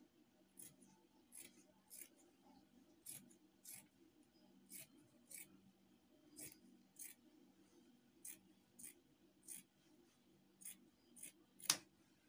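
Fabric shears cutting through a strip of black fabric: a steady series of crisp, short snips, about one every half second to second, often coming in pairs.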